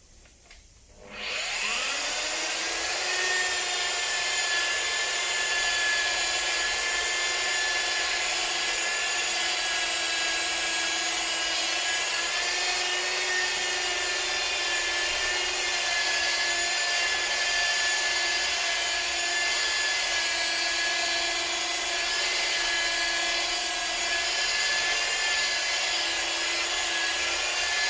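Indasa electric machine polisher spinning up about a second in with a rising whine, then running steadily as its foam pad works cutting compound over car paint.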